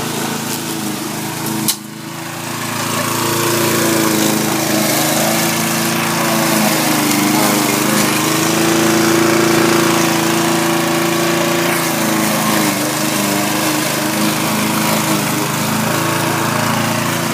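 Petrol rotary lawn mower engine running steadily, flooded and smoking after being tipped over so that petrol ran into the engine. About two seconds in there is a sharp click and a brief dip, then the engine note rises and runs louder and steady.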